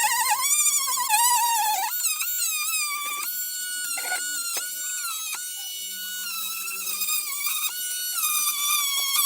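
Background music: a high, buzzy lead melody of held notes joined by sliding pitch bends.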